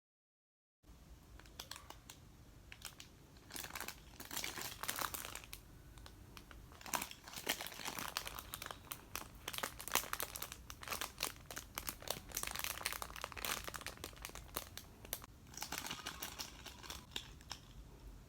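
Packaging wrapper crinkling and rustling as it is handled, in irregular crackles that come and go, starting about a second in.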